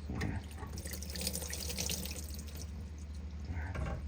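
Water trickling and splashing, loudest from about one to two and a half seconds in.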